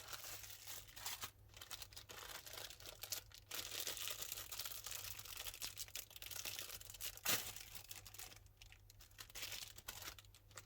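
Rustling and crinkling of packaging as craft supplies are taken out and handled, coming and going, with one sharp click about seven seconds in.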